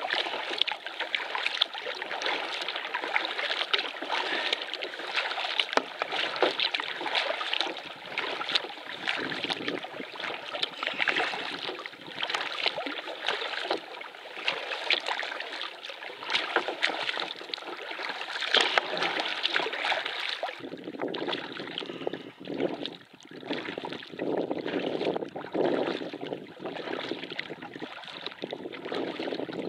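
Water splashing and rushing around a canoe on the water. About two-thirds of the way through, the sound changes suddenly to a duller, lower rush.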